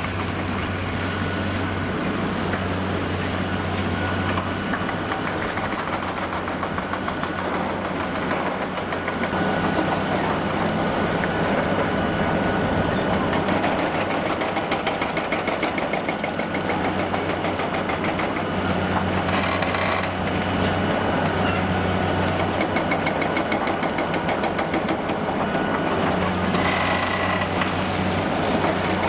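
Heavy demolition excavator's diesel engine running steadily with a dense clattering rattle and a faint high whine that rises and falls. A louder, harsher noise flares briefly twice, about two-thirds of the way in and near the end.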